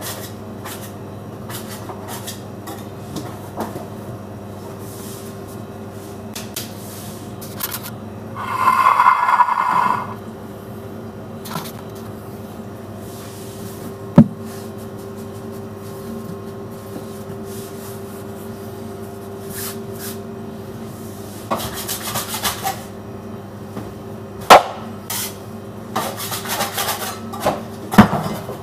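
Kitchen work noises over a steady machine hum: a noisy rush about nine seconds in, rubbing and scraping, and three sharp, loud knocks near the middle and the end.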